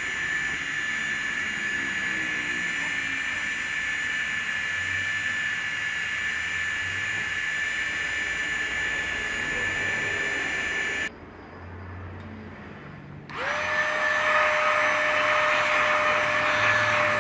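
Spindle motor of a 5-axis CNC machine running with a steady high whine while machining. It cuts off suddenly about eleven seconds in and comes back about two seconds later, joined by a lower tone that rises in pitch, holds steady and drops away at the very end.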